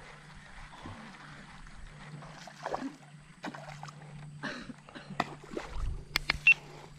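Footsteps and grass brushing as someone walks along a grassy ditch bank, with a few sharp clicks in the second half over a faint steady low hum.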